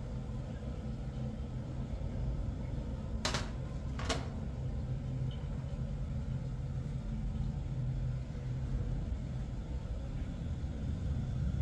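Two sharp clinks of dishes and spoons on a metal serving tray, a little under a second apart, over a steady low hum.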